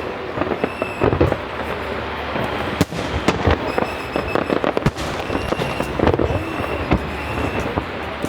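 Fireworks display: a dense barrage of bangs and rapid crackling pops from aerial shells bursting, with brief high steady tones heard several times.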